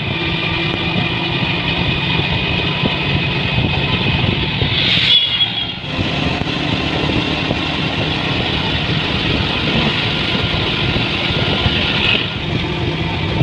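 Motorcycle engine running steadily as the bike rides along a road, dipping briefly about six seconds in.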